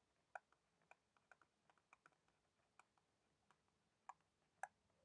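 Very faint, irregular clicks and taps of a stylus on a drawing tablet during handwriting, about a dozen in all, the strongest about half a second in and near the end.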